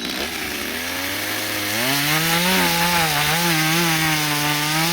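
Stihl 020T two-stroke chainsaw idling, then throttled up about a second and a half in and cutting into a soft-wood stump, its engine speed wavering slightly under the load.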